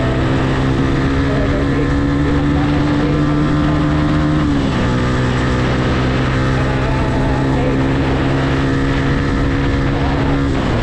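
Yamaha R15's single-cylinder engine running at steady revs under way. Its pitch creeps up, then drops abruptly about four and a half seconds in as it shifts up a gear, and drops again near the end. A steady rush of wind runs underneath.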